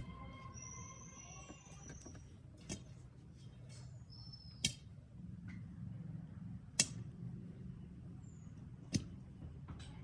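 Birds chirping with short high whistles, four sharp clicks about two seconds apart, and a low steady hum underneath.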